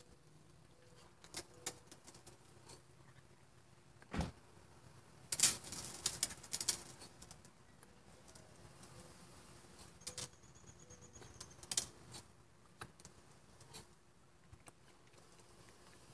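Water from a small spinning lawn sprinkler pattering faintly on the grass, with scattered sharp clicks and taps, the loudest cluster about five to seven seconds in.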